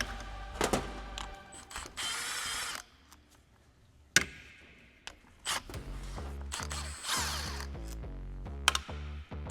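A 12 mm socket on an extension loosening the cylinder head bolts of a two-stroke motorcycle engine: metallic clicks and knocks, with a short ratcheting burst about two seconds in and a sharp knock about four seconds in. Background music comes in for the second half.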